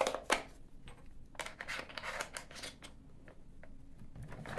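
Plastic clicks and a sliding scrape as a small plastic Portable Painter travel palette case is handled and fitted back together: a couple of sharp clicks at the start, a scrape lasting about a second and a half, light ticks, and another click at the end.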